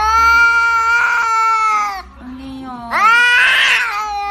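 Long, wailing cat-like yowls: one falls away about two seconds in, and a second starts about a second later, sliding up in pitch and turning rough and rasping in its middle.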